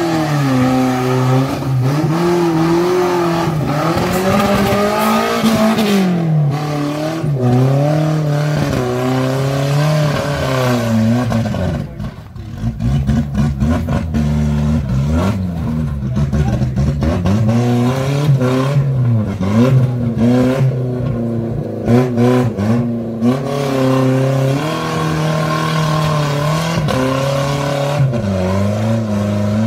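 Maruti Suzuki Gypsy 4x4's engine revving hard under load, its pitch rising and falling again and again as it crawls up a rocky slope. About twelve seconds in it drops briefly, and sharp knocks break through the revving for a stretch in the middle.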